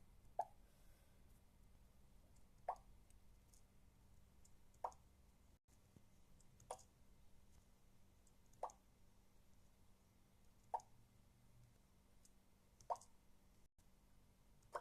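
A series of eight short pops, evenly spaced about two seconds apart, over near silence.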